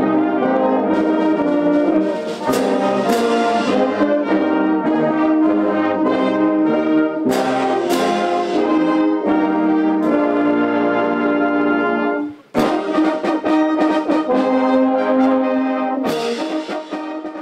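A brass-dominated band of trombones, tubas, horns, flugelhorns and saxophones playing a piece together, with a brief break about twelve seconds in before the playing resumes.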